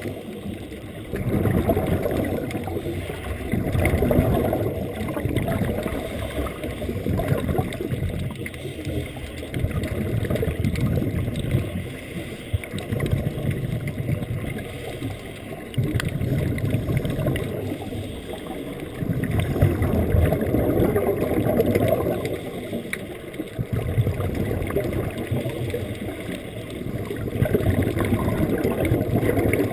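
Underwater gurgling of air bubbles exhaled from hose-diving regulators. It comes in surges every few seconds, one for each breath.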